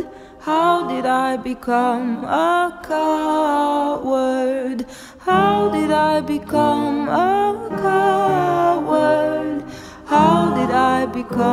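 Song: a voice singing a melody with sliding, wavering pitch over low held accompaniment notes.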